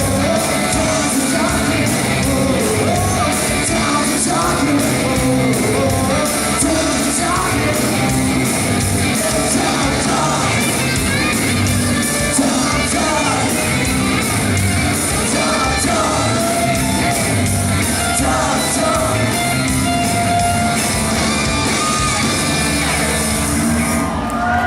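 Live rock band playing the closing section of a song, with vocals over loud electric guitars, bass and drums. The band stops about 24 seconds in.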